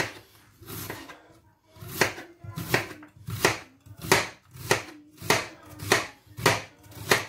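Kitchen knife slicing an onion into julienne strips on a plastic cutting board. A steady run of cuts, each ending in a knock on the board, about one every two-thirds of a second.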